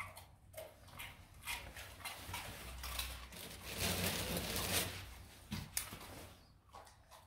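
Two Rottweilers chewing and smacking on treats just handed to them, a run of small clicks and crunches, with a louder noisy stretch about four seconds in.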